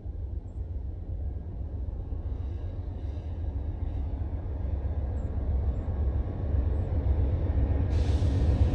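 Diesel-hauled Amtrak Auto Train approaching slowly, heard as a low rumble that grows steadily louder. About eight seconds in, a hiss joins it as the train nears.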